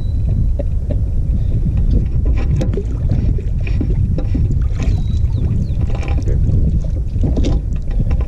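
Wind buffeting the boat-mounted action camera's microphone in a steady low rumble, with scattered light knocks from handling in the boat.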